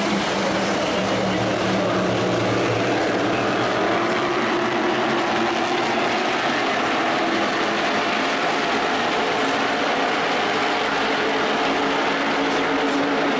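A field of NASCAR Whelen Modified race cars running around the oval, their V8 engines making a loud, steady, many-layered drone with pitches that drift slowly as the cars lap.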